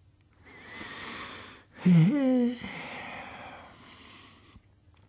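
A man's voice between recited lines: a breath drawn in, then a short, loud voiced sigh about two seconds in, trailing into a long breathy exhale.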